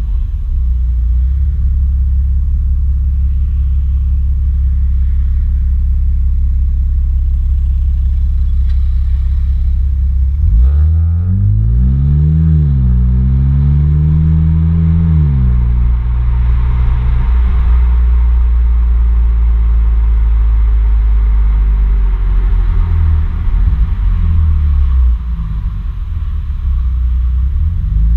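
BMW Z4 E89 sDrive23i straight-six through an Eisenmann sport exhaust, heard at the tailpipes while driving: a steady low drone at cruise. About ten seconds in, the revs rise sharply, dip briefly, climb again, then drop back to the steady drone.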